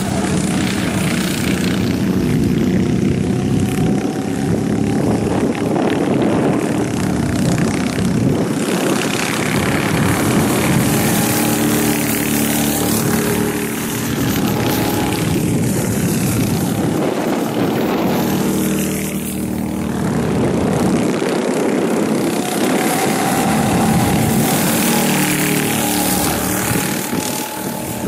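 Several rental go-kart engines running on the circuit as karts pass, the pitch rising and falling as they speed up and slow down through the corners.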